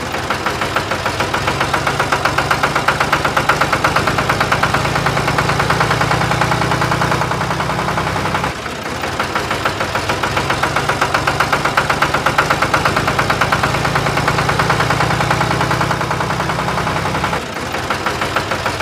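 Tractor engine sound, a steady rhythmic chugging at an even pace, briefly broken off about eight and a half seconds in and again near the end.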